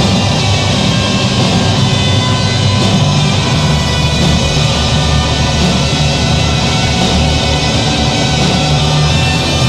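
Background rock music, steady and loud.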